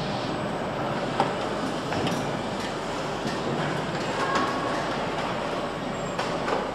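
Steady machinery din of a motorcycle assembly line, broken by scattered short clicks and clanks of tools and parts.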